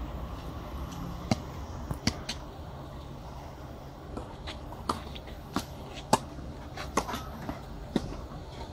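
Tennis ball being struck and bouncing on a clay court: a string of sharp pops, about eight spread irregularly over several seconds, over a low steady outdoor background.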